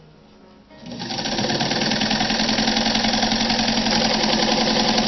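Atlas B5 sewing machine with a 1.5-amp motor starting up about a second in and sewing steadily at speed through folded denim, with a fast, even rhythm of the needle mechanism.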